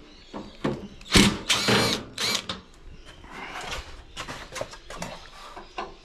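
Cordless drill-driver whining in short bursts, about one and two seconds in, as it backs out the screws of a washing machine's cabinet. Clicks and knocks of handling fall between the bursts.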